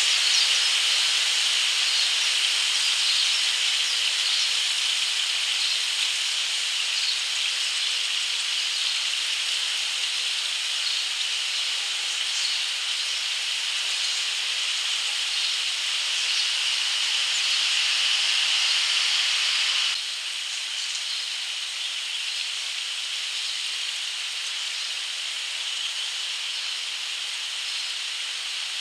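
A steady high-pitched hiss that drops a little in level about twenty seconds in.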